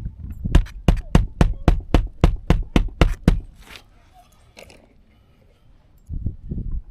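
Roofing nails being driven into asphalt shingles: a rapid run of about a dozen sharp knocks, roughly four a second, stopping after about three seconds.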